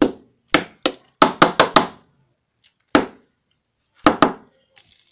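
Sharp clicks and knocks as a plastic fidget spinner is handled: about ten, five of them in a quick run a little after the first second, then two close together near the end.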